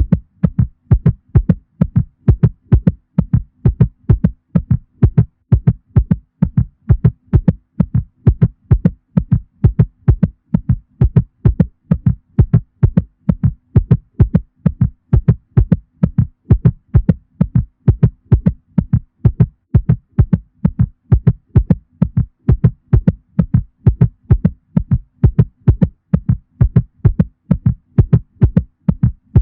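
Heartbeat sound effect presented as a cat's heartbeat: a fast, even rhythm of low thumps that keeps going without a break, with a faint steady hum underneath.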